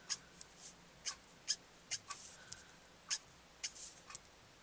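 Copic marker's brush nib flicked in quick strokes across smooth cardstock: about a dozen faint, short swishes, irregularly spaced at roughly two to three a second.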